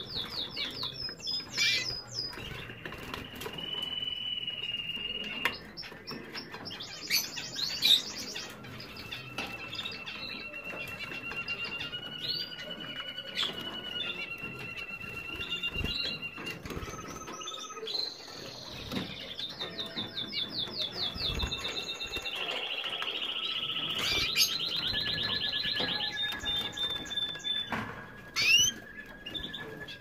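Canaries singing: fast trills of rapidly repeated notes alternating with long held whistled notes and quick rising chirps, with a few short sharp knocks.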